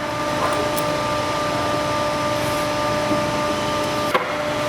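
Steady mechanical hum of background machinery or ventilation, an even noise with several constant tones held through it. One light knock about four seconds in.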